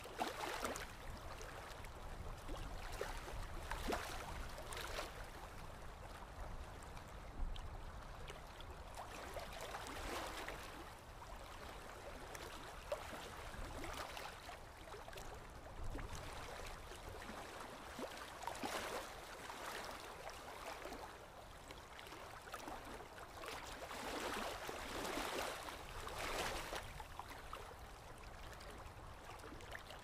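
Water lapping and splashing against a boat's hull in uneven washes every second or two, over a steady low rumble.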